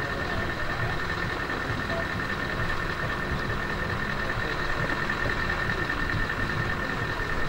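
A truck engine idling steadily, low and even, with a constant high whine above it.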